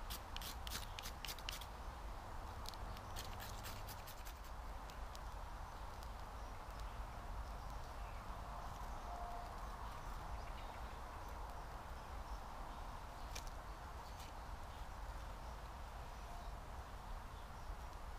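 Split birch kindling being handled and lit: a quick run of sharp clicks in the first couple of seconds, a few more soon after, and a single click later as the small flame takes, over a low steady rumble.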